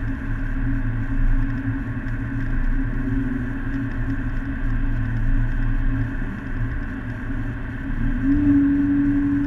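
Car engine and road noise heard from inside the cabin while driving, a steady drone. The engine note rises a little in pitch and grows louder about eight seconds in, then holds.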